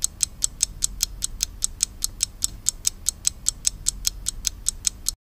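Clock-ticking sound effect, fast and even at about five ticks a second, over a low steady hum.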